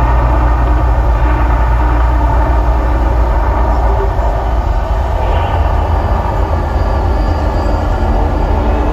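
The Mirage volcano show's eruption: a loud, steady, deep rumble with a rushing roar over it.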